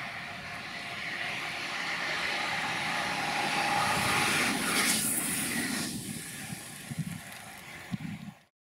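Double-deck TER electric multiple unit passing close by: a rising rush of wheel and running noise that peaks about halfway through, then fades. Two short thumps come near the end before the sound cuts off.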